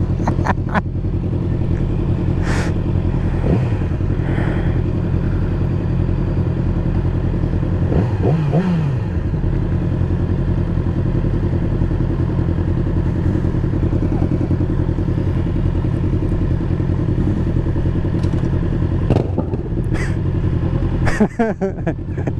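2020 Yamaha YZF-R6's inline-four engine idling steadily, with a brief rise and fall in pitch about eight seconds in and a few clicks near the end.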